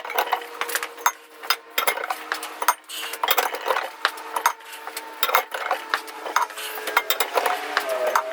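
Irregular metallic clanks and clicks of a steel wrench working on a hydraulic cylinder as its gland is tightened, over a faint steady hum.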